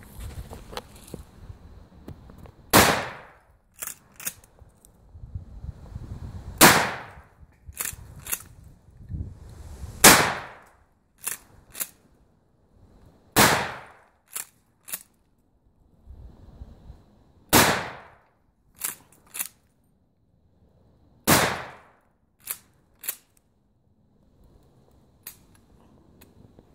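Mossberg 500 pump-action shotgun firing slugs: six shots about three to four seconds apart. Each shot is followed about a second later by two quick clacks of the pump being worked to chamber the next round.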